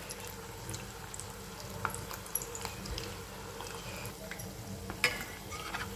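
Potato-and-pea cutlets deep-frying in hot oil: a steady fizzing bubble with scattered small crackles, and one sharper click about five seconds in.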